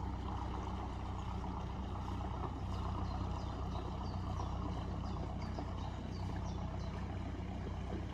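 Hire motor cruiser's engine running steadily as the boat moves off along the river, a low even drone with the wash of water. Starting a few seconds in, a common chiffchaff sings in short repeated chirps over it.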